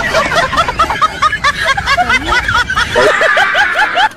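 Rapid, high-pitched snickering laughter: a run of short 'hee-hee' notes, about four to five a second.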